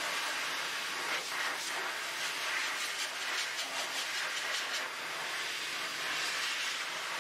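Pet dryer blowing a steady rush of air over a wet Maltese's coat.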